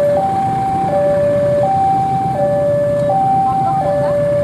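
An electronic two-tone railway warning alarm steps back and forth between a lower and a higher pitch, about every 0.7 seconds. Under it runs the low rumble of the approaching KAI diesel locomotive.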